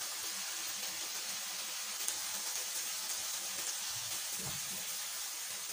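Chicken pieces and tomatoes sizzling steadily in hot oil on a tawa (flat griddle), an even hiss.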